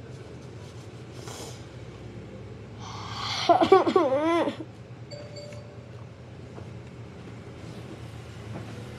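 A boy's short voiced outburst behind his hand, lasting about a second, about three and a half seconds in, its pitch wavering up and down. A steady low hum runs underneath.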